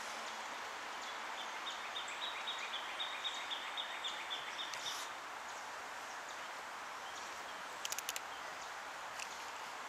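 Steady outdoor background hiss, with a bird repeating a short high note about four times a second for several seconds. Near the end comes a quick run of four sharp clicks.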